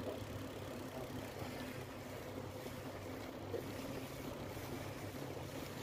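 Steady rushing noise of a bicycle being ridden, heard from a handlebar-mounted camera: wind on the microphone and the tyres rolling along the path.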